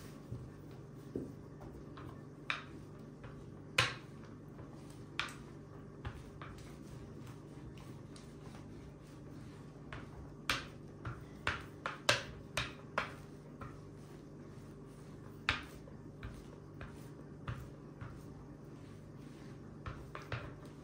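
Rolling pin working pastry dough on a glass worktop: scattered sharp clicks and taps, with a quick run of them about halfway through, over a low steady hum.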